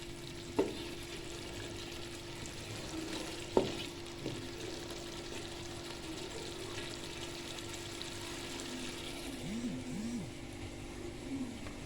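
Sauce sizzling in a frying pan as it is stirred with a spoon, with a steady low hum underneath. Two sharp knocks of the spoon against the pan, about half a second and three and a half seconds in.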